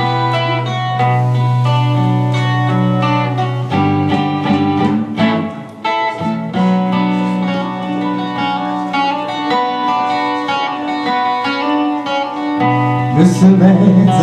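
Instrumental introduction of an enka ballad: a plucked guitar melody over sustained backing notes and a steady bass, growing louder near the end as the verse approaches.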